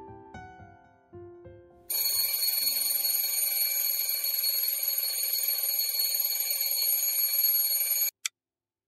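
Wake-up alarm ringing: a loud, continuous, high-pitched ring that starts suddenly about two seconds in, lasts about six seconds and then cuts off abruptly, with one short blip after it. Soft piano notes fade out as it begins.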